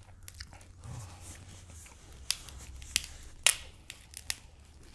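Grilled king crab leg shells being cut and cracked open: a run of sharp snips and cracks, the loudest clustered in the second half.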